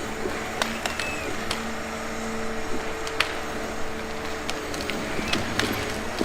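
Forestry harvester's diesel engine and hydraulics running steadily with a droning hum, broken by several sharp cracks and knocks as the harvester head grips and delimbs a trunk.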